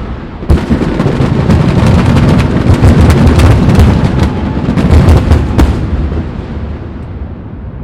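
Fireworks finale: a barrage of aerial shells bursting in quick succession, with a heavy boom about half a second in, then dense rumbling and rapid sharp cracks that die away over the last two seconds.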